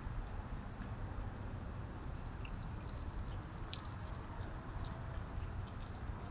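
Night insects trilling as one steady, unbroken high-pitched tone, over a low rumble of background noise, with a few faint clicks scattered through it.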